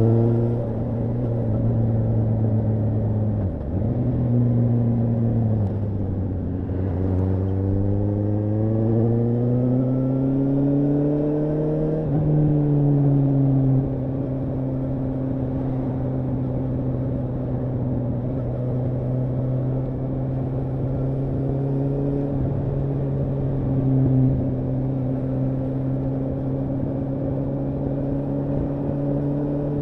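Suzuki GSR750's inline-four engine running under way. Its note dips briefly about three and a half seconds in, climbs steadily from about seven to twelve seconds in, then settles into a steady, even note at constant speed.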